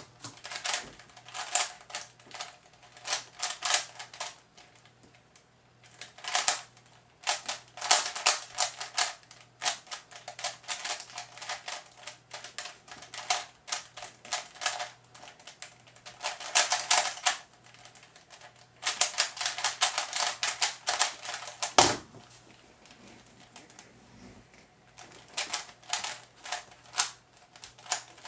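Type A 1 3x3 speedcube being turned fast in a speedsolve: rapid runs of plastic clicking and clattering from the layers, broken by short pauses. A sharp key click at the very start starts the laptop timer and a louder clack about 22 seconds in stops it, then the turning resumes after a short lull.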